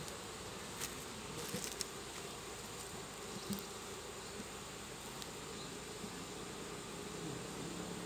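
Western honeybee (Apis mellifera) colony buzzing as a steady hum from an opened hive box full of comb frames, with a few light knocks about one to four seconds in.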